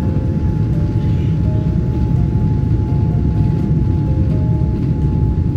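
Airliner cabin noise during descent: a loud, steady low rumble from the engines and airflow, with a light melody of background music over it.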